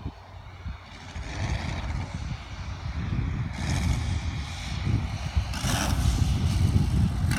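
The model's two Saito FG-90R3 three-cylinder radial engines running, heard as a rough low rumble that grows louder in the second half, with two surges of hiss.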